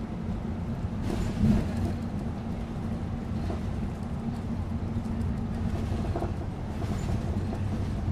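Bus in motion, heard from inside: steady low engine and road rumble, with a single thump about a second and a half in.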